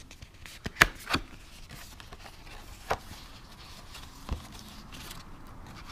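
A thin white card documentation folder being handled and opened: four sharp clicks and snaps of card, with light paper rustling between them.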